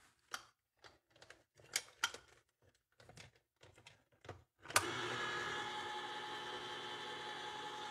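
Several light clicks and knocks as a tin can is fitted into an electric can opener. Nearly five seconds in, a sharp click starts the opener's motor, which then runs with a steady whir as it cuts around the lid.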